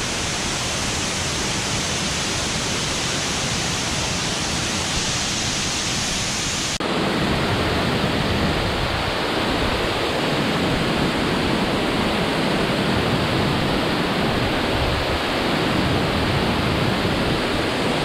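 Large waterfall pouring, a steady rush of falling water. About seven seconds in, the sound shifts abruptly to a deeper, slightly louder rush.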